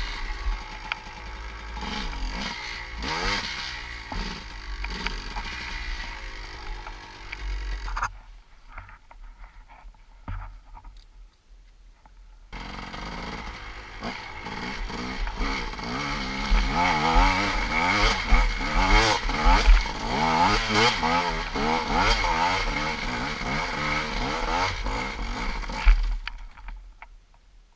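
GasGas EC 250 two-stroke enduro engine revving hard and unevenly on steep climbs, its pitch rising and falling with the throttle. It drops away for a few seconds, picks up again for another climb, and falls away near the end.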